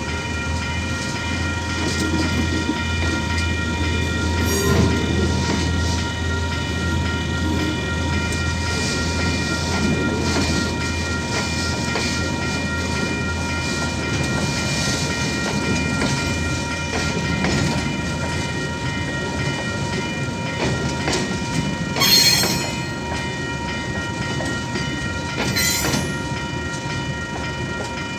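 KiwiRail DSG diesel locomotive rumbling past, then its container wagons rolling over the level crossing with wheels clattering on the rails. The crossing's warning bell rings steadily throughout, and two brief sharp metallic screeches stand out near the end.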